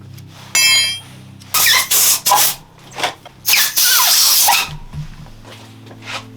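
A short, loud, high squeal, then several loud hissing bursts like a spray being released, over steady background music.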